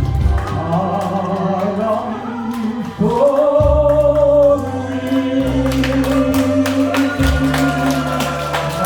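A song sung over backing music: a voice holding long notes, with a bass line changing notes underneath and light percussion ticks.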